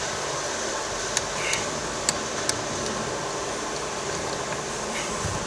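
Steady hiss of background noise, like a fan, with a few faint light clicks of a hand tool working on the steering-wheel airbag bolts.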